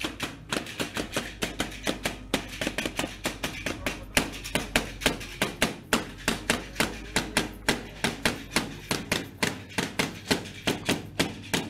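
Sharp, even taps, about five a second, in time with the devil dancers' dance, over faint music.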